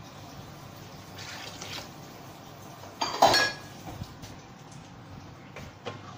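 Red sweet-and-sour chili sauce simmering in a large aluminium wok, a steady bubbling, with one loud metallic clink about three seconds in. Near the end a spatula goes into the sauce and scrapes the wok.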